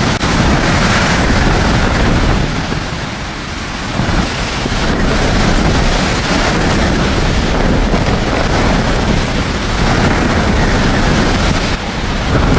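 Strong gusting wind blasting against the microphone, a loud rushing noise that surges and eases in waves.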